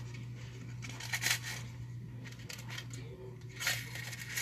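Paper rustling and crinkling in short bursts as homemade paper squishies are handled.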